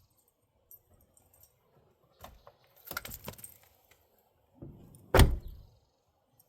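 Metallic jingling and clattering, then a single heavy thud about five seconds in.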